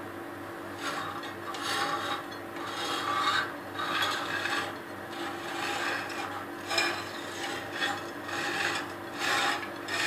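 A kitchen utensil scraping against a dish in repeated, irregular strokes, roughly one a second, starting about a second in.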